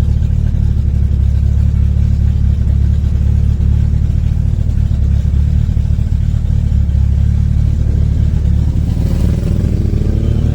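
Turbocharged Volkswagen AP 1.9 engine in a Voyage, with a 350T cam and Holset HX40 turbo, running with a steady deep drone while driving. About nine seconds in, the revs climb as the car accelerates.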